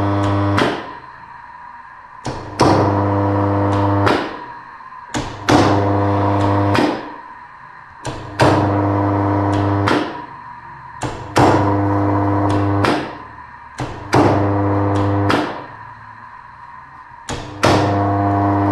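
A three-phase induction motor on a DOL contactor starter is switched on and off over and over, roughly every three seconds. Each start opens with a sharp click from the contactor pulling in, then a steady electrical hum while the motor runs. Each stop fades away as the motor coasts down.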